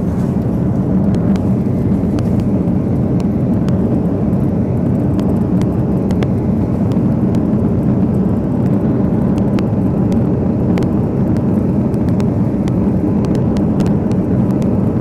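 Steady, loud low rumble of a vehicle in motion, with scattered faint clicks.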